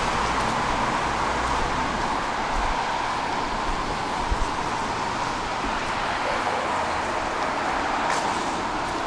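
Steady hiss of distant road traffic on wet streets, with two light knocks about four seconds in.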